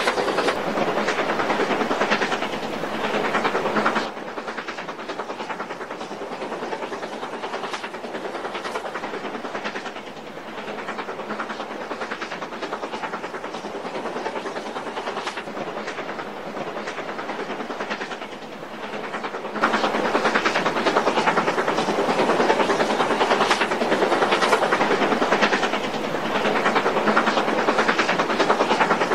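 Steam locomotive working hard on an upgrade: rapid exhaust beats with steam hiss, hauling a passenger train. The sound drops quieter about 4 seconds in and comes back louder near 20 seconds.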